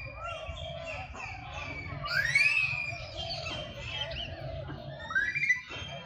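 Many birds calling at once: overlapping chirps and whistles, with a louder rising call about two seconds in and another about five seconds in.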